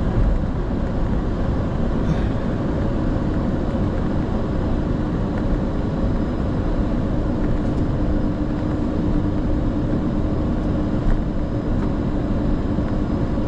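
Steady flight-deck noise of a Boeing 747-400 freighter rolling off the runway after landing: engines near idle and a low rumble from the airframe and wheels. A faint steady hum joins about five seconds in.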